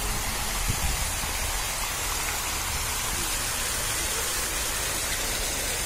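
Fountain jets splashing down into a stone basin: a steady rush of falling water.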